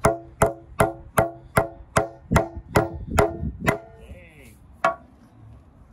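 Hammer, cut lengthwise and bound back together with FiberFix, driving a screw into a wooden board: about ten quick blows at roughly two and a half a second, each ringing briefly, then a short pause and one last blow near five seconds in.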